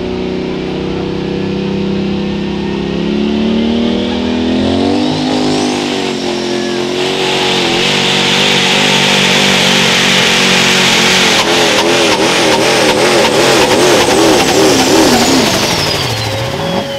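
Super stock diesel pulling truck under full throttle pulling a sled. The engine note climbs about four seconds in and a high turbo whine rises to a steady scream over a loud rush, while the engine pitch wavers quickly under load. Near the end the whine and the engine both fall away as the truck comes off the throttle.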